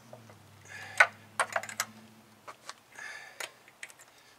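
A series of sharp metallic clicks from a wrench on the front-wheel lug nuts as they are checked for tightness. The loudest click comes about a second in, then a quick cluster of clicks.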